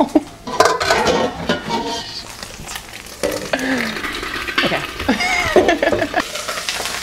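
Tofu frying in hot oil in a lidded cast-iron skillet, sizzling with many sharp pops of spitting oil. About three seconds in, high wordless whining cries that bend up and down join in for around three seconds.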